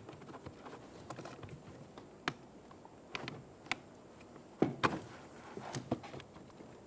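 A few sharp plastic clicks and taps, spread out over several seconds, as electrical connectors are pressed at their push tabs and pulled off a car door panel's window switch.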